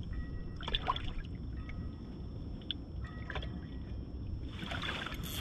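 Water lapping and dribbling against a small boat's hull over a low steady rumble, with a few faint clicks. Near the end a louder rush of water-like noise builds.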